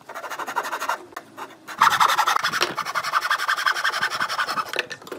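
Handsaw cutting through a pine board, rasping stroke after stroke: a short burst of sawing, then after a brief pause a longer run of about three seconds.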